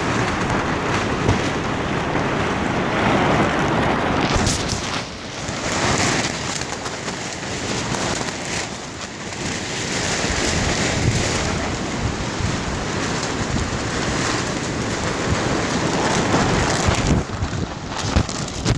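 Storm wind gusting hard and buffeting the microphone, a dense roar of noise that surges and eases every few seconds.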